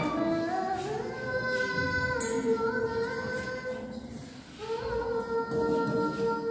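A woman singing a slow, melismatic song in long held notes, with a short break for breath about four seconds in before the next long note.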